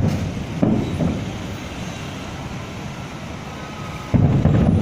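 Fireworks shells bursting: a boom at the start and two more within the first second, a low rolling rumble after them, and a louder run of booms near the end.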